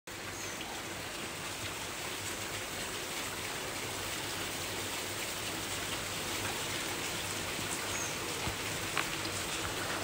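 Steady rain falling on leafy shrubs, an even hiss with a few sharper drop strikes, the loudest about nine seconds in.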